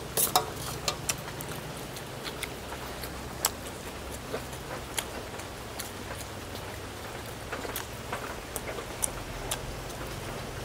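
Irregular clicks and clinks of eating, of utensils against dishes and of crab shells being handled, a few a second and loudest at the start, over a steady low hum.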